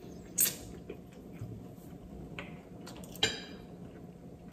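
Metal fork clicking against a ceramic plate: a sharp click about half a second in and a louder, briefly ringing clink about three seconds in as the fork is set down, with a few faint ticks between.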